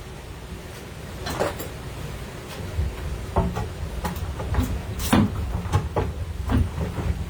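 Hand tools prying nails out of reclaimed wooden boards: irregular knocks, clicks and creaks of metal against wood, the sharpest about five seconds in.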